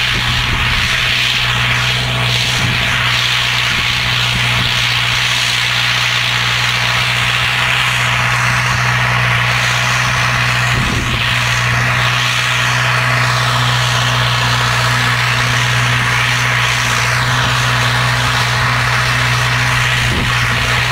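Belarus MTZ 892 tractor's four-cylinder diesel engine running steadily under load, pulling a mounted reversible plough through the soil.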